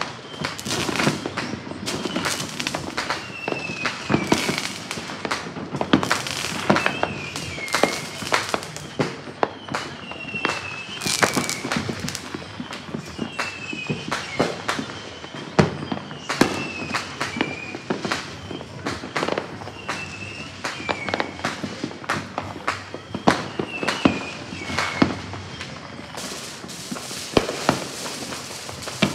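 Many fireworks and firecrackers going off at once: a near-continuous run of sharp bangs and pops, some much louder than others, over a steady crackling background. A short falling whistle-like tone recurs every few seconds.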